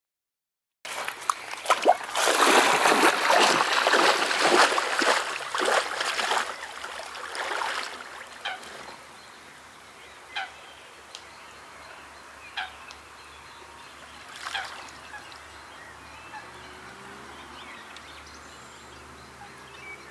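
Lake water splashing loudly for about six seconds around an angler wading and playing a hooked fish, then settling to a quieter wash with a few single sharp splashes. Faint waterfowl calls come in near the end.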